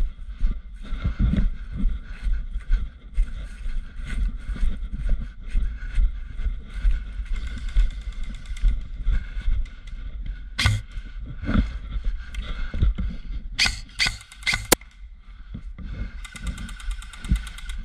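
Wind buffeting the helmet camera's microphone and rustling movement across dry grass. Between about 10 and 15 seconds in come several sharp snaps from an electric airsoft rifle, a suppressed Krytac M4 Trident SPR.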